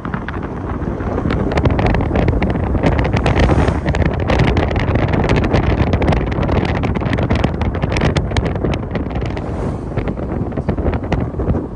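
Wind buffeting the microphone: a loud, steady low rumble with rapid crackles throughout.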